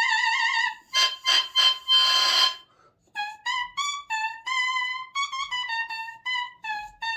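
Bare oboe double reed blown on its own, off the instrument, crowing: a held, wavering squawk at the start, a cluster of short buzzy honks, then a quick run of short reedy notes bobbing slightly up and down in pitch.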